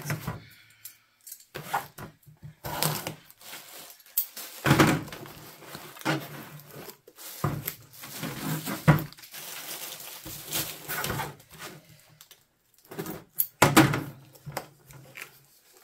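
Cardboard shipping box and plastic mailer bag being opened by hand: irregular rustling, crinkling and tearing of cardboard, tape and plastic, with sharp clicks and knocks as the box is handled on the table.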